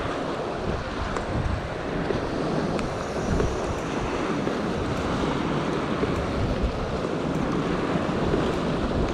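Sea surf washing and splashing steadily against a rock ledge, with wind rumbling on the microphone.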